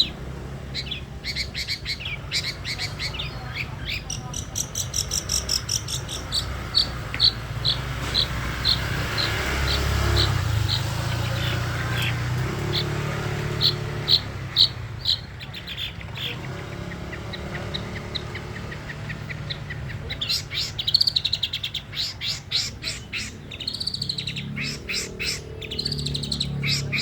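Long-tailed shrike (cendet) singing: a long run of sharp, evenly repeated chirps, then faster chattering, trilling phrases with rising-and-falling notes in the last several seconds. A steady low hum runs underneath.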